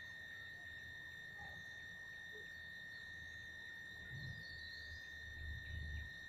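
Faint steady high-pitched drone, one unchanging tone, over low rumbling noise that swells about four seconds in and again near the end.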